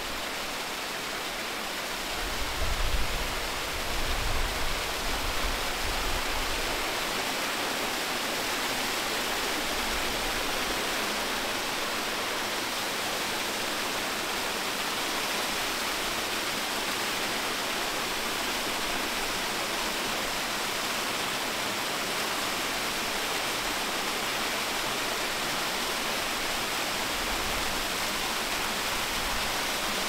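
A moorland brook's water rushing steadily, an even hiss with no change in it. A low rumble comes and goes between about two and seven seconds in, and briefly again near the end.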